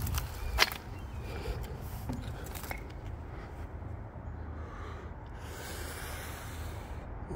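Footsteps crunching and scraping over rubble of broken hollow clay tile blocks and litter, with a few sharp clinks in the first three seconds, the loudest about half a second in, then softer rustling.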